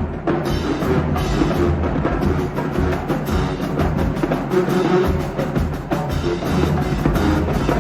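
Music with heavy drums and a steady, thumping beat.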